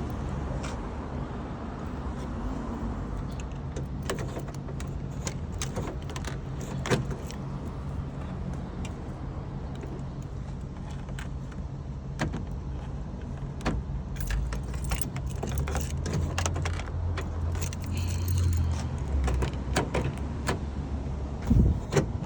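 Keys jangling and clicking in the hand over a car engine running at idle; the engine's low hum swells for a few seconds past the middle.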